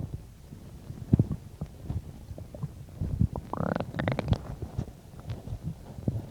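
A human stomach gurgling and rumbling while digesting a recent meal. Irregular low gurgles, with a sharp one about a second in and a higher squeaky gurgle that rises in pitch midway.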